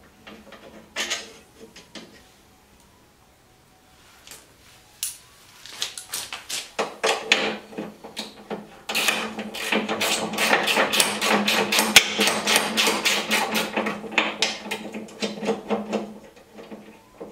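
Ratchet wrench clicking in long runs of quick, even clicks from about five seconds in, as bolts are turned out to split the stair-climbing hand truck's frame.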